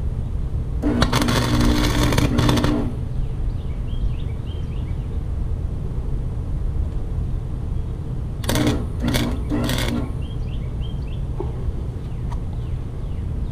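Wire-feed welder arcing as the broken steel handle of a push mower is tack-welded: a crackling, hissing weld of about two seconds near the start, then three short tack bursts about eight and a half seconds in. A steady low hum runs underneath.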